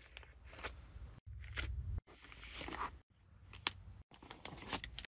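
Faint crinkling and tapping of foil and paper sheet-mask packets as they are handled and slotted into a drawer, in short snatches that cut off suddenly several times.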